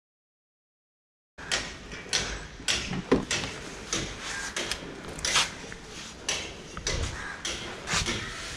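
Silence for about a second and a half, then a run of irregular clicks, knocks and low thuds over a faint steady background.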